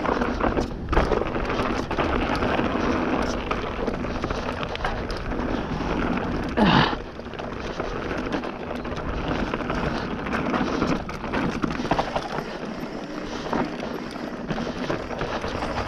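Bird Zero AM hardtail mountain bike riding fast down a rough, dry dirt trail: tyres rolling over dirt and roots, with steady rattle and frequent knocks from the unsuspended frame and drivetrain. One short, louder scraping burst comes about seven seconds in.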